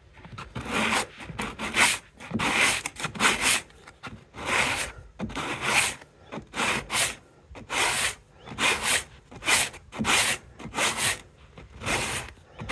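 Sandpaper wrapped around a wooden block rubbed by hand over hardened two-part wood filler on a skirting board corner: rasping back-and-forth strokes, about two a second, sanding the filler back flush along the edge.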